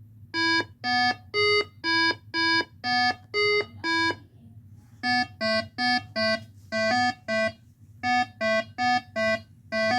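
A run of short electronic beeps, about two a second. The first eight step between a few pitches, then after a short pause the beeps come in quick groups of three.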